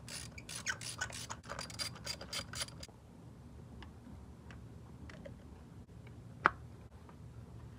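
Ratchet clicking quickly as a fresh spark plug is wound into a plug well of a Honda B16 DOHC VTEC head, for about three seconds, then a few scattered clicks and one sharp click about six and a half seconds in.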